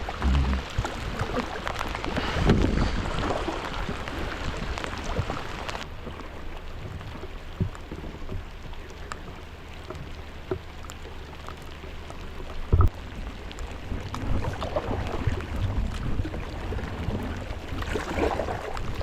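Steady wash of water and wind noise around a small boat, with a single sharp knock about thirteen seconds in.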